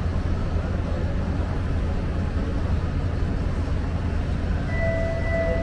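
Steady low rumble of a Los Angeles Metro D Line subway train running. Near the end, two steady tones, one high and one lower, join the rumble.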